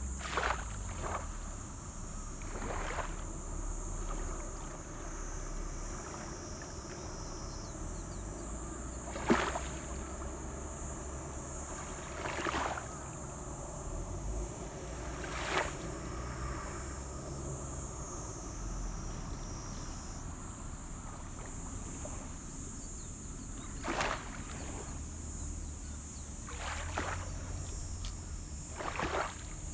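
Steady high-pitched insect chirring, with a short splash or swish every few seconds, the loudest about nine seconds in.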